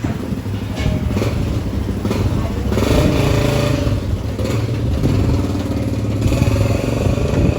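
Honda CG Fan motorcycle's single-cylinder engine running and being revved up and down several times, as it is checked for an engine noise.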